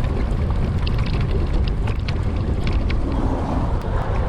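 Wind buffeting the microphone of a moving bicycle, a steady low rumble, with faint scattered ticks from the bike and trail surface.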